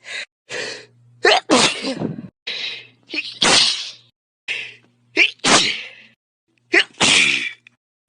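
A person sneezing again and again: four loud sneezes about two seconds apart, each with a quick sharp breath in just before it.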